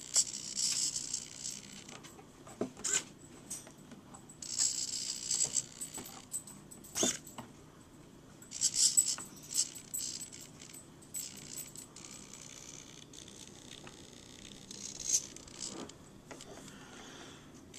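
Handling noise: irregular rustling and scraping with scattered sharp clicks and small rattles, coming and going in short bursts.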